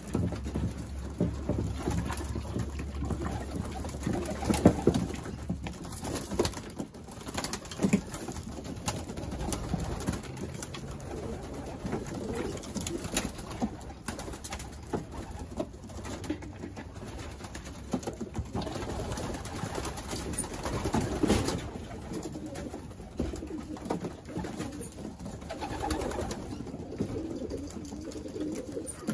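Racing pigeons cooing in a small wooden loft, a low warbling that goes on throughout, with scattered sharp clicks and knocks among it.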